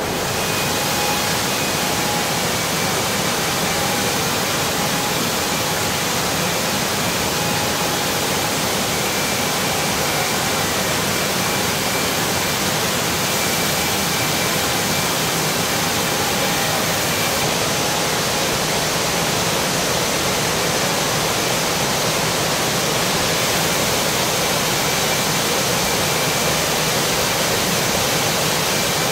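Steady hiss of a robotic car paint booth, with spray atomizers and booth air flow, as clearcoat is sprayed onto a car body. Faint thin whines run over the hiss.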